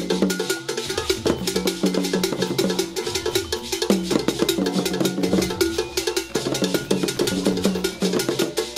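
Background music with a fast, busy percussion rhythm over held low notes that change every second or so.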